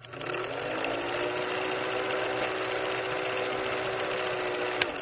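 Old film projector sound effect: a steady, rapid mechanical clatter with a hum under it, and a single click near the end.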